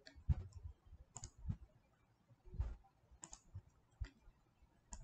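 Computer mouse clicking about ten times at irregular intervals; some clicks come with a dull low thump.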